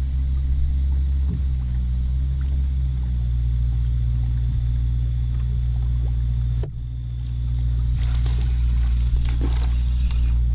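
A steady low motor hum with a brief dip about two-thirds of the way through, fitting the boat's bow-mounted electric trolling motor.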